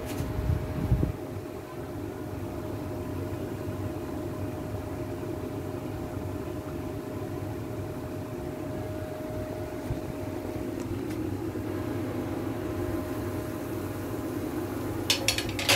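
A steady mechanical hum with a thin whine on top that fades out about two-thirds of the way through. A couple of knocks come about a second in, and a quick run of clicks near the end.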